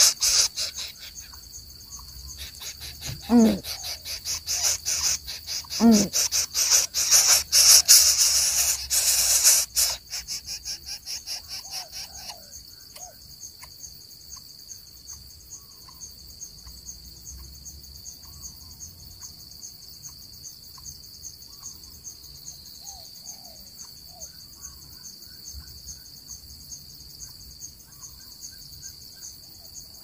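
Insect chorus of crickets or cicadas: a loud, rapid, high-pitched pulsing trill for about the first ten seconds, easing into a steady high drone. Two short calls falling in pitch come a few seconds in, and faint bird chirps are scattered through the rest.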